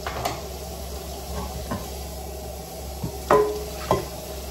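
Dishes being washed by hand at a kitchen sink: a metal pan knocks and clanks against other dishes several times over a steady hiss of running water. The loudest clank comes a little over three seconds in and rings briefly, with another just before four seconds.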